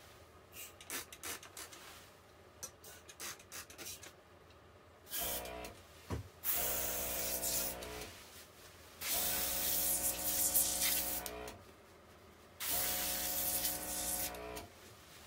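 OPAWZ airbrush spraying in four bursts of one to two and a half seconds, the hiss of air carrying the steady hum of its small compressor; a few light clicks and rustles come before the first burst.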